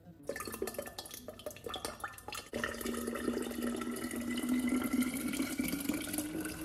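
Liquid poured from a bottle into a tall glass carafe. First comes a couple of seconds of splashing, then a steady pour whose ringing tone rises slowly in pitch as the carafe fills.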